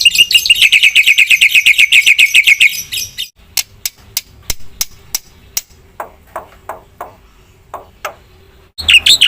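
Black-winged starling (jalak putih) singing: a rapid run of repeated high notes, about a dozen a second, for the first three seconds, then a spell of sharp clicks and short falling notes. The rapid run starts again near the end.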